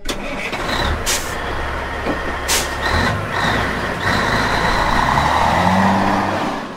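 A heavy truck running with a steady low rumble, and two short, sharp hisses of air about one and two and a half seconds in.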